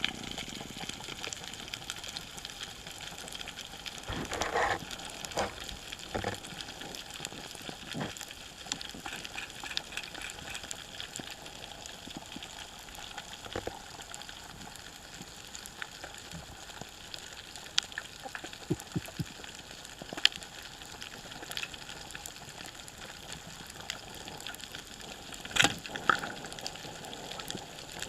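Underwater reef ambience: a steady crackle of many small clicks. A few louder knocks come about four seconds in and near the end.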